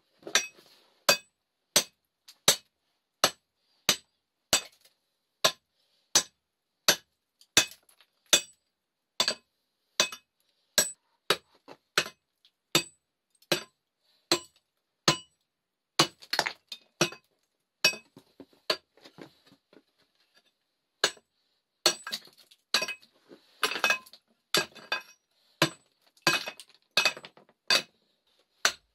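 Rock being struck hard over and over: sharp, ringing clinks at about three every two seconds. About halfway through they come faster and more irregularly, with some scraping between them.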